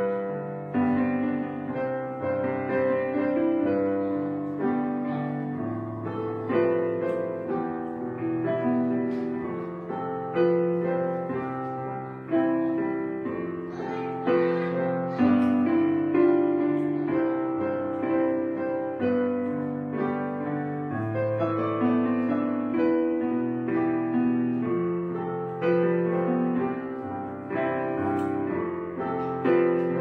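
Background piano music: notes struck one after another and left to fade.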